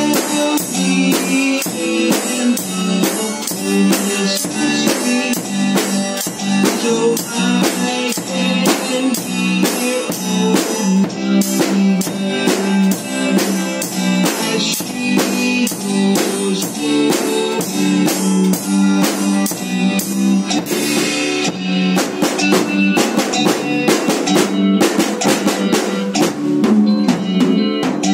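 Acoustic drum kit played in a steady beat, with snare, bass drum and cymbal hits, over recorded backing music with guitar.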